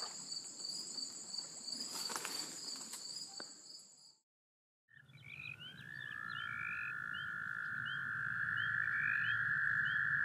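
Steady high-pitched insect buzzing for the first few seconds, then a brief silence, then a continuous frog trill at a pond, with short repeated chirps above it.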